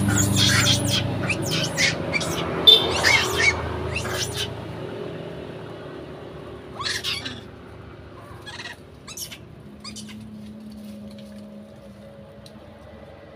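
High, sharp animal chirps and squeaks, a rapid cluster in the first four seconds and a few scattered ones later, over a low rumble that fades away.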